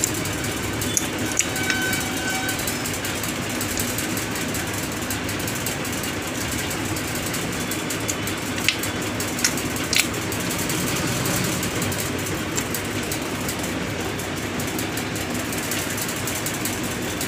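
Steady rushing background noise, with a few light, sharp metallic clicks near the middle as steel gearbox shift forks and gear parts are handled and seated on the shift drum.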